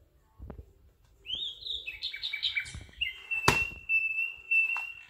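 Recorded birdsong played from a children's sound book's built-in sound chip: a quick run of chirps, then a steady held whistle. Sharp clicks of the sound button being pressed come at the start and about three and a half seconds in.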